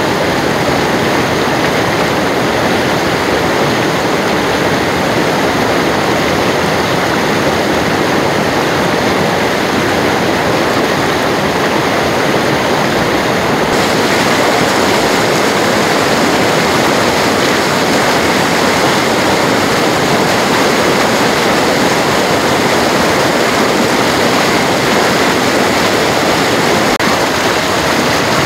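Karjulanjoki river in spring flood, water rushing through the rapids with a loud, steady rush. The hiss grows a little brighter about halfway through.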